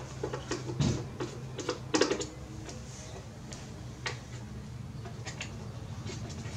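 Scattered clicks and knocks of hands and a tool working on the plastic case of a Toshiba radio cassette recorder being taken apart, with two louder knocks about one and two seconds in, over a low steady hum.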